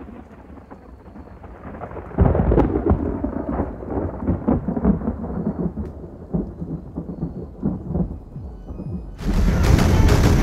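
Deep, thunder-like rumble with crackling from a film logo's sound design, swelling sharply about two seconds in. Near the end a loud, dense, distorted electronic sound cuts in suddenly.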